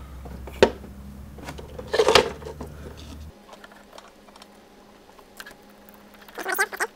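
Plastic wiring-harness connectors and wires being handled: a sharp click under a second in, a rustling rattle around two seconds, then soft scattered ticks. A low steady hum underneath stops about three seconds in.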